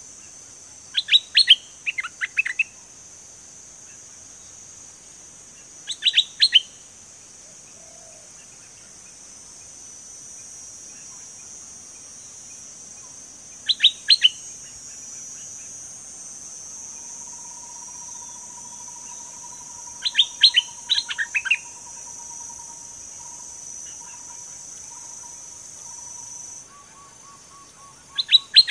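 Stripe-throated bulbul singing short phrases of quick, bubbly notes, about five bursts several seconds apart, over a steady high-pitched background buzz.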